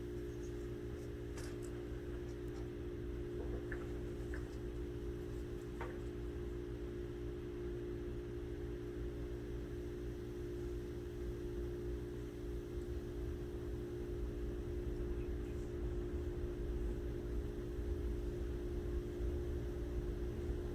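Steady low hum of a running mains-powered device, with a few faint light ticks about four and six seconds in.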